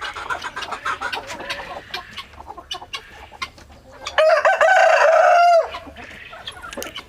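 Country chickens clucking softly, with scattered small clicks. About four seconds in, a rooster crows once, loud and held for about a second and a half.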